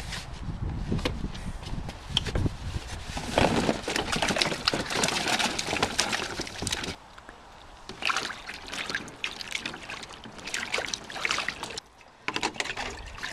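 Apples tumbling into a tub of water and being sloshed about as they are washed, with irregular splashing and trickling water. Near the end, water drains from a stainless steel colander of apples lifted out of the tub.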